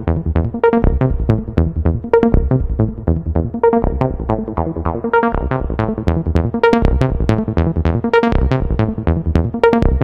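Electronic background music: a steady run of quick, evenly spaced plucked synth notes.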